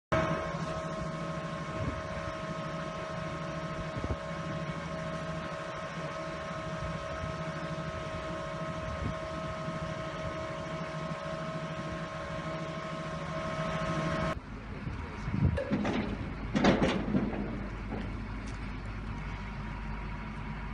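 Soilmec R-312 piling rig running, a steady engine hum with several held higher tones over it. About two-thirds of the way through it cuts to a different recording: a lower, quieter machine hum with a few short louder sounds.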